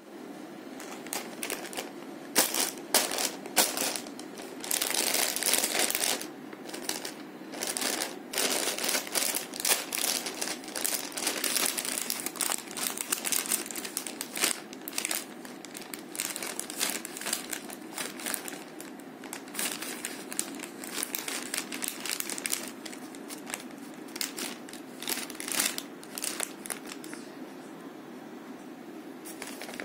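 Clear plastic bag crinkling and rustling as it is handled, in irregular crackles. They are busiest and loudest through the first half and calmer near the end.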